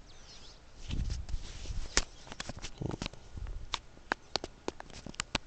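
Handling noise: a run of irregular sharp clicks and light taps, with low rumbling thumps about a second in and again about three seconds in.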